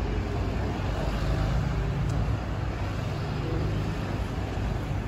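A car engine idling with a steady low rumble.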